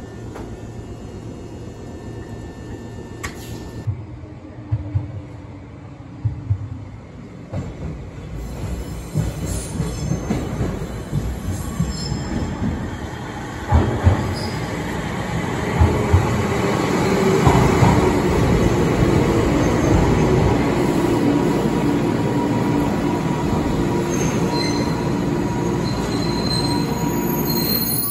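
An electric train arriving at a platform. Its wheels knock over rail joints as it comes in, then its running noise swells and holds steady, with short high squeals near the end as it brakes. The first few seconds carry the running noise of a Fukui Railway tram.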